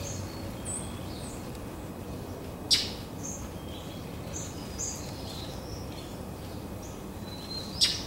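Small songbirds chirping with short, high, scattered notes around a backyard bird bath, over a steady low rumble of distant traffic. Two sharp, loud clicks stand out, about five seconds apart.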